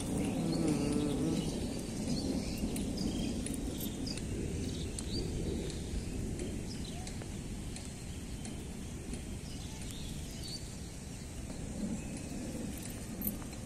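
Outdoor ambience: a steady low rumble with scattered short, faint high chirps. There is a louder stretch of low sound in the first two seconds or so.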